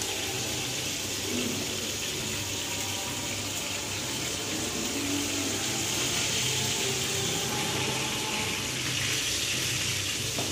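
Chicken pieces shallow-frying in hot oil in a pan: a steady sizzle as they are turned over.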